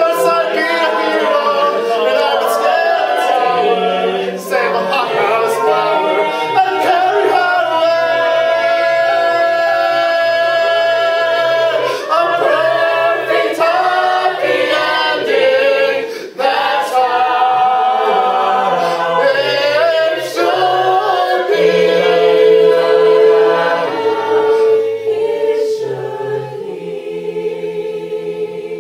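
Co-ed a cappella group singing a musical-theatre song in harmony, voices only, with a bass line under the chords. It grows quieter near the end on a long held final chord.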